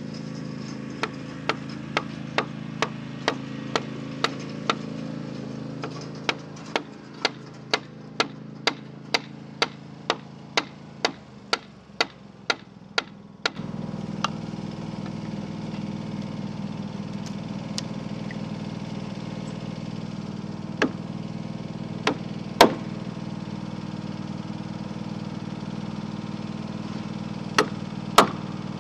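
Wooden mallet striking a timber-framing chisel, chopping out a bridle joint in a rafter: a steady run of sharp blows about two a second, then a few scattered blows. Under it the steady drone of a riding lawn mower's engine, which gets louder about halfway through.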